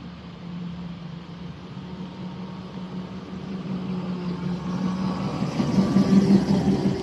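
Small-scale railroad locomotive running as its train approaches and passes: a steady engine hum that grows louder toward the end, with rattling noise from the train on the track.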